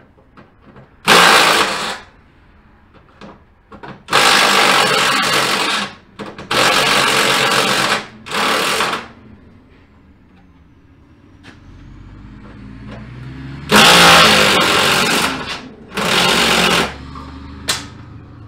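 Cordless power driver running in about six short bursts of one to two seconds each, driving in the fasteners of a truck grille, with small clicks and knocks of parts between the bursts.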